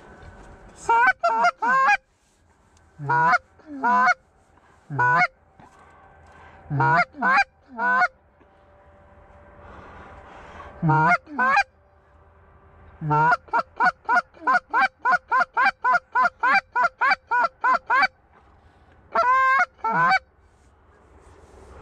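Acrylic Canada goose call blown close by, clucking and honking to a passing flock of white-fronted geese (specks). Each note breaks sharply in pitch; the notes come in groups of two or three, with a fast run of about three clucks a second for some five seconds in the middle.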